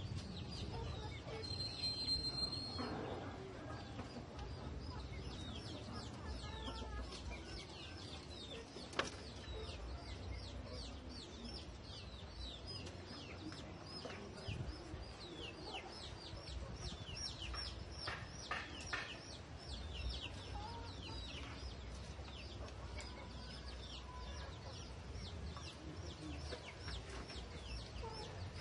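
Chickens chirping: a steady stream of short, high, falling peeps, several a second, over a low rumble.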